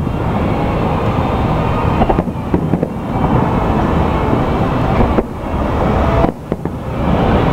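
Aerial fireworks display: shell bursts and booms running together into a dense, continuous rumble, dipping briefly about five seconds in and again just past six seconds.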